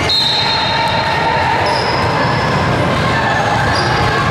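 Loud, steady din of a gym during a basketball game, with a short, high, steady tone right at the start.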